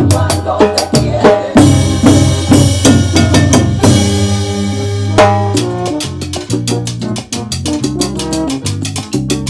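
Salsa music with a drummer playing along on timbales, snare and cowbell, in dense quick strokes with rimshots over a pitched bass and band line. A cymbal rings from about one and a half seconds in until about five seconds in.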